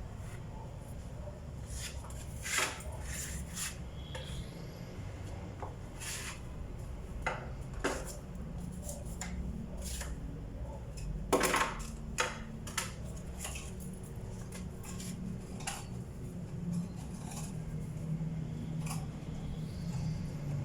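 Scattered light clinks and taps of small hard objects, like metal tools being handled and set down, with a louder cluster about eleven seconds in, over a low steady hum.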